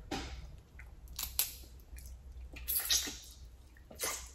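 Close-miked wet mouth sounds of eating steamed blue crab meat: a few short smacks and sucks, the loudest a little past one second and near three seconds in.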